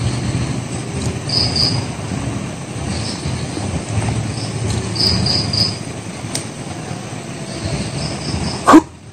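Crickets chirping in short groups of two or three over a steady low rumbling noise. About a second before the end, a short loud sound rises sharply in pitch.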